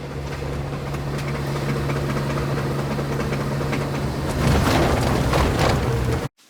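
A car's loose road wheel, its wheel nuts working loose, clicking over and over as the car drives along over the steady sound of the engine and road: the warning sound of a wheel about to come off. The sound grows louder about two-thirds of the way in and cuts off suddenly just before the end.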